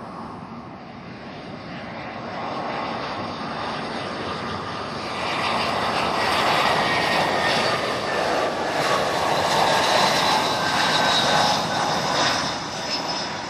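Jet airliner passing close by: its engine noise builds to a loud peak and then fades, with a high turbine whine that drifts slightly lower in pitch as it goes past.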